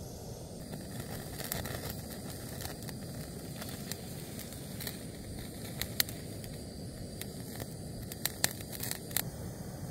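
Backpacking canister gas stove burner running steadily while a piece of meat held in tongs directly over the flame crackles and pops as its fat drips and flares. The pops are scattered, with a sharp one about six seconds in and a cluster near the end.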